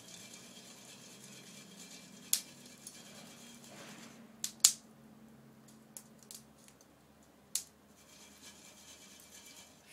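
A wood fire crackling under a long-handled pan of roasting chestnuts: a handful of sharp, separate snaps, the loudest about halfway through, over a faint steady hum.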